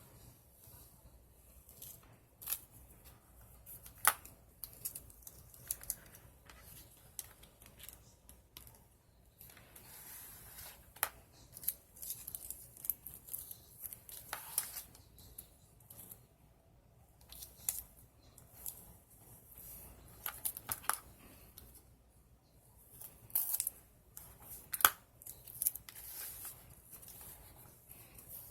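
Scissors cutting paper in a string of irregular short snips, with paper being handled between the cuts.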